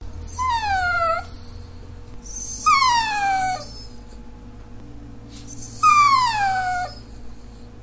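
Dachshund whining to beg: three drawn-out whines about a second each, spaced a couple of seconds apart, each sliding down in pitch.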